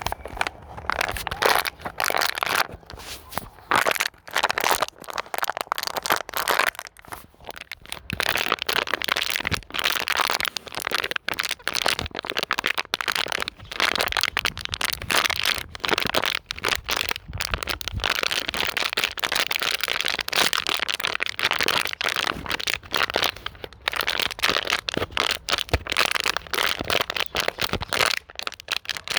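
Plastic bottle being crinkled and squeezed by hand, a continuous irregular run of sharp crackles and cracks as the thin plastic buckles and pops back.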